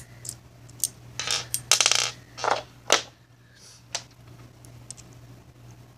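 Small hard fidget-spinner pieces knocking and clicking on a wooden tabletop: a few light clicks, then a quick rattle just under two seconds in and a few more knocks up to about four seconds in.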